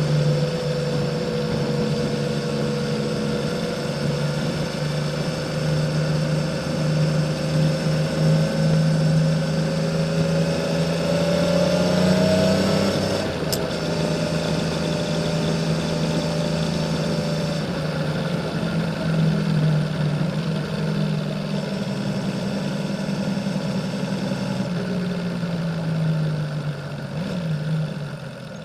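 Honda CBX 1000's six-cylinder engine running under way through a 6-into-2 Kerker exhaust, at a smooth, steady pace. The engine note rises a little, drops after a short click about thirteen seconds in, and eases off near the end.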